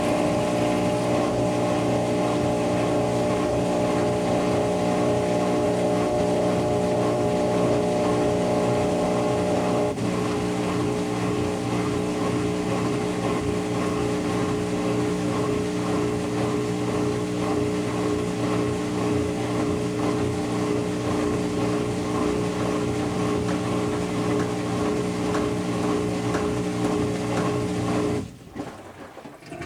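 Kenmore Series 500 high-efficiency washing machine in its spin cycle: a steady motor whine of several held tones, which shift about a third of the way through and drop away sharply near the end.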